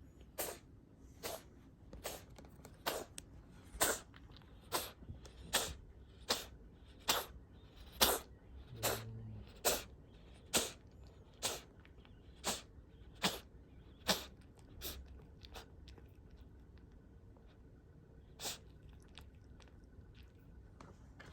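Cat coughing: a long run of short coughs, a little under one a second, for about fifteen seconds. After a pause comes one more cough near the end.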